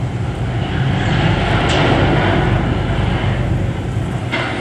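Steady low rumble of the ferry's engine under a rushing noise that swells in the middle, with two sharp clicks, one about a second and a half in and one near the end.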